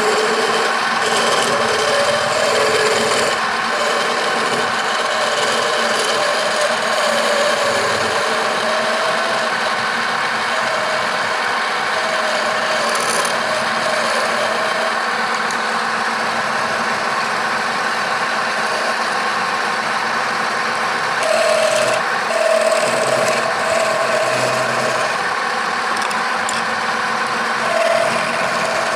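Wood lathe motor running steadily with a turning tool or abrasive rubbing against the spinning wood, a continuous scraping hiss over the motor's hum.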